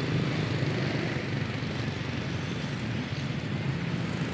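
A steady engine-like hum with a low drone and a light haze of outdoor noise over it, unchanging throughout.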